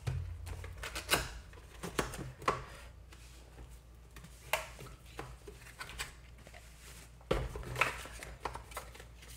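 Dash cam's retail box being opened and its contents handled: scattered light knocks and clicks, with a short cluster about seven to eight seconds in.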